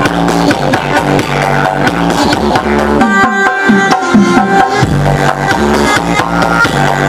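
Loud electronic dance remix played through a large carnival parade sound system (sound horeg), with a heavy pulsing bass. The bass drops out for about two seconds in the middle, leaving the higher melody, then comes back in.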